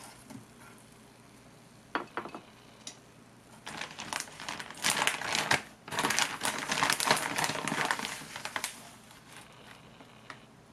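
Plastic packet crinkling loudly for about five seconds as it is opened and rummaged in, in the middle of the stretch: a bag of dried sardine flakes being got out for sprinkling. A couple of light clicks come before it, about two seconds in.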